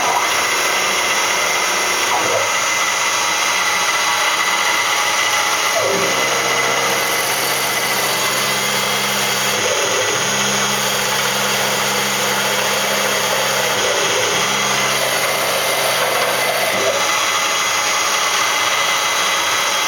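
Converted Rong Fu RF-45 CNC milling machine running its program, spindle motor turning steadily while the end mill pockets a hole in an aluminium part. A lower hum comes and goes in stretches of a few seconds through the middle.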